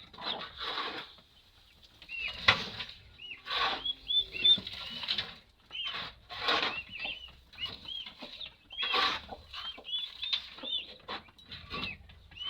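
Young chicks peeping over and over in short high chirps, with rustling swishes every second or two from flapping wings or litter being moved.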